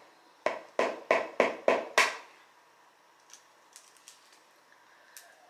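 Six quick, sharp taps of an eggshell knocked against a hard edge to crack it, about three a second, growing louder to the last. A few faint clicks follow.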